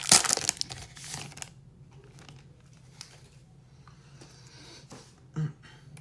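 Foil booster-pack wrapper crinkling loudly as it is torn open, for about the first second and a half. Then faint rustling, with one short soft knock near the end.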